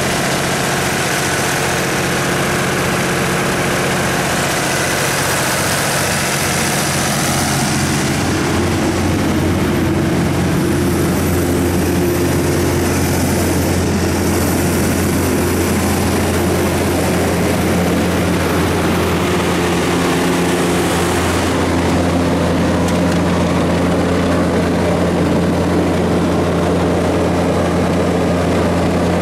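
Cummins QSB7-G7 diesel engine of a Doosan G190 generator running at steady speed under roughly 155 kW of load-bank load. It is a constant drone that gets a little louder about eight seconds in.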